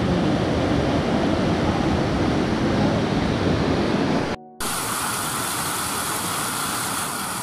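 Muddy floodwater rushing down a swollen river in a steady, loud wash of noise. It drops out briefly about four and a half seconds in and returns thinner and hissier.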